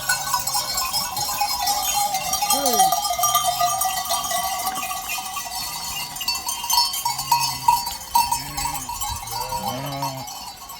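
Livestock bells on a flock of sheep and goats clanking and ringing continuously as the animals move, with sheep and goats bleating now and then, several times near the end.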